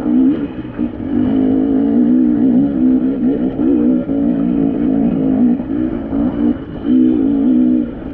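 Dirt bike engine climbing a steep rocky trail, the revs rising and falling as the throttle is opened and eased over the rocks, with a few brief drops where it is backed off.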